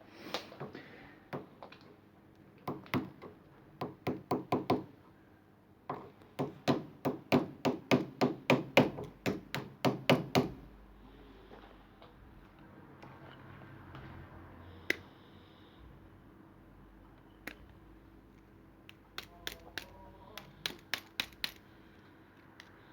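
Runs of light, quick hammer taps, about four a second with pauses between the runs, knocking the retaining pins out of a Ford C-Max bonnet lock.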